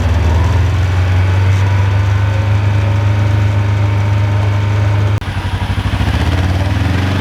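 Kawasaki Mule PRO side-by-side's engine running steadily with a strong low hum; its note changes and dips slightly about five seconds in.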